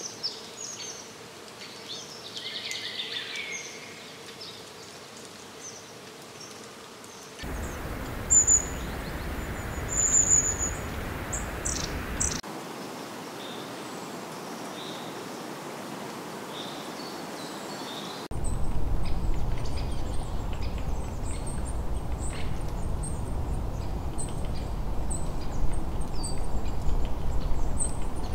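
Forest ambience with scattered high bird chirps and short whistles. The background changes abruptly three times, and in the last third a steady low rumble sits under the chirping.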